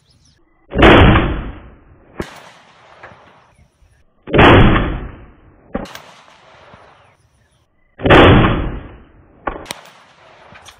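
Three rifle shots from a scoped AR-style rifle, about three and a half seconds apart, each dying away over about a second. A fainter sharp crack follows each shot about a second and a half later.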